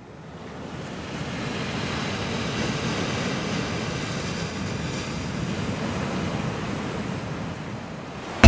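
Sea surf washing steadily, fading in over the first couple of seconds.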